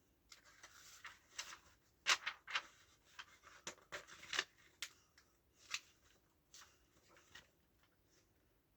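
Faint paper rustling and short crisp ticks of a comic trade paperback being handled, its pages turned and flicked, loudest and busiest in the middle.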